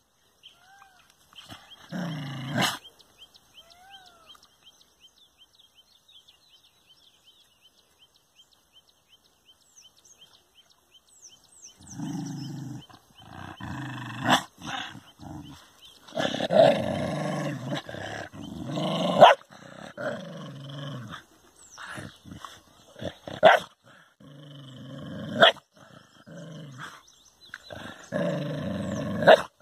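Dog growling at its own reflection in a mirror: one short growl about two seconds in, a quiet stretch, then from about twelve seconds long rough growls broken by several sharp barks.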